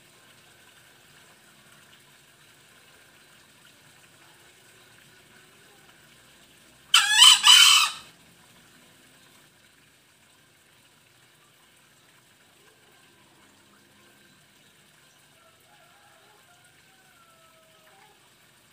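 Male green junglefowl crowing once, about seven seconds in: a single short crow in two quick parts, lasting about a second.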